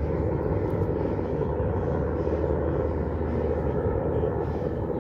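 Helicopter flying over, its rotor and engine making a steady low drone.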